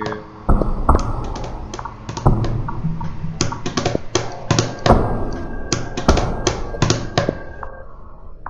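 Experimental electronic soundtrack of irregular sharp clicks and knocks over a low rumble, with a faint steady tone around the middle.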